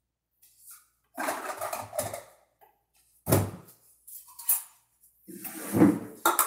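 Kitchen dishes and a cupboard door being handled: a series of separate knocks and clatters, the sharpest about three seconds in and a longer clatter near the end.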